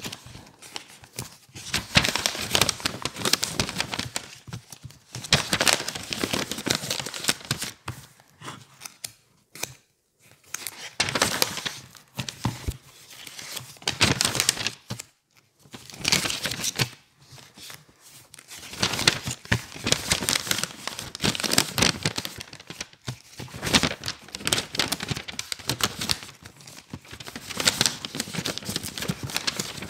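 Paper book pages being flipped and turned fast and roughly, a dense crackling rustle of paper in bursts with a few brief pauses.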